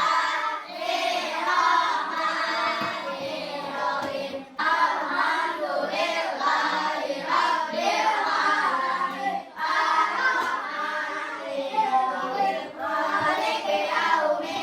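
A group of children singing together in unison, in phrases with short breaks about every five seconds.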